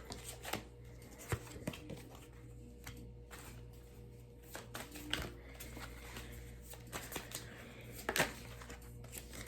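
Tarot cards being handled: scattered soft clicks and taps as cards are shuffled, flipped and laid down, over a low steady hum.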